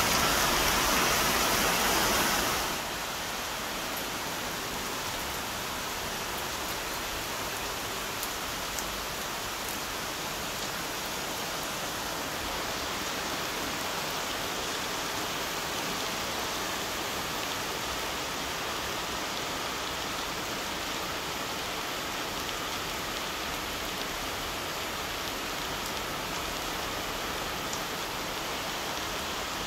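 Heavy rain pouring down as a steady, even hiss. It is louder and brighter for the first two seconds or so, then drops suddenly to a softer, steady hiss, with an occasional faint tick of a single drop.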